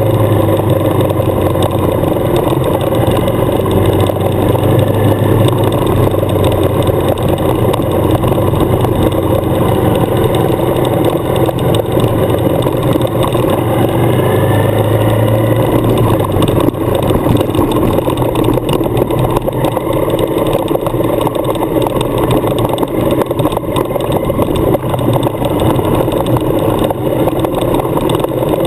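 Suzuki adventure motorcycle engine running steadily while riding a leaf-covered gravel road, heard from the bike-mounted camera. A strong low hum breaks up into a rougher, more uneven noise about halfway through.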